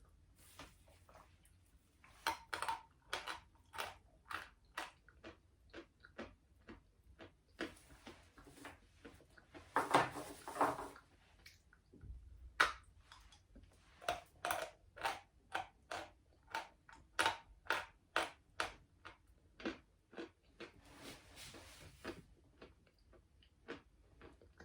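Close-up chewing of a small piece of edible natural lump chalk, with dry crunches repeating about twice a second and a louder, longer crunch about ten seconds in.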